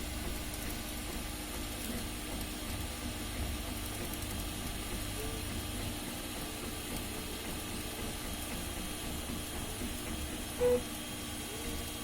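Flsun Cube 3D printer running a print: a steady hum and fan hiss with faint, short motor tones. A brief, louder tone comes about ten and a half seconds in.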